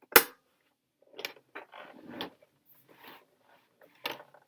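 Plastic handling sounds on a Casio CTK-2300 keyboard: a sharp snap just after the start, which fits the battery compartment cover being closed, then rattling and scraping, and another click a little after 4 s.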